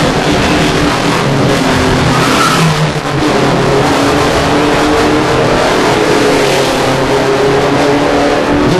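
Touring race cars' engines running hard, several engines heard at once at fairly steady revs over a dense rushing noise.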